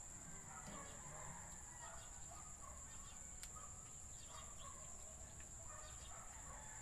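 Faint outdoor ambience: a steady high-pitched insect drone with scattered faint bird chirps, and a single soft click about three and a half seconds in.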